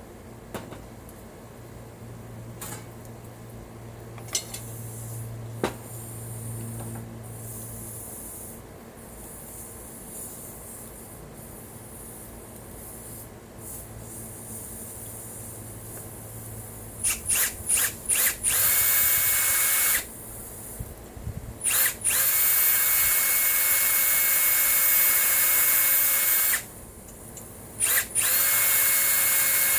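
Electric drill boring a hole through an aluminum awning brace: a few quick trigger blips about two-thirds of the way in, then longer runs at a steady speed with short pauses between. Before that there are only a few faint handling clicks.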